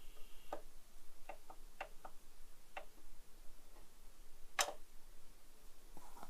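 Vinyl record surface noise as the stylus runs in the lead-in groove of a 12-inch LP: a faint hiss with about nine scattered clicks and pops at uneven intervals, the loudest a little past halfway.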